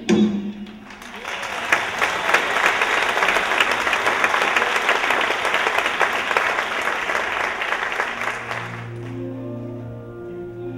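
Theatre audience applauding steadily for about eight seconds. Near the end the applause fades out as music with sustained notes begins.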